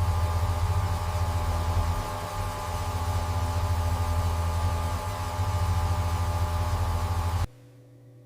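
A machine running steadily, with a strong low hum over a broad hiss. It cuts off suddenly near the end.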